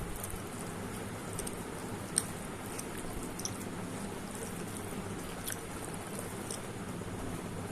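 A person chewing food, with scattered soft, wet mouth clicks every second or so over a steady low background hum.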